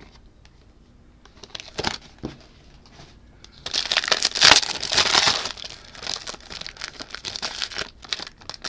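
Plastic wrapper of a football trading-card pack being torn open and crinkled. A few light crinkles come first, then from about four seconds in a long stretch of loud crinkling.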